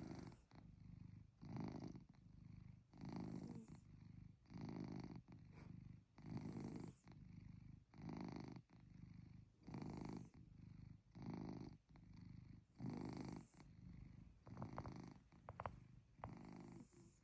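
Domestic cat purring close by, a low rumble that swells and fades with each breath about every one and a half seconds, the steady 'motor' of a resting cat. A few faint clicks near the end.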